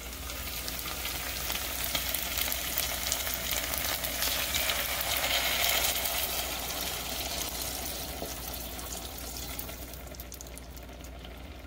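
Hot pan of browned chicken drumsticks sizzling as water is poured in from a glass measuring cup, the start of a stewed chicken. The hiss builds to its height about halfway through and then slowly dies down.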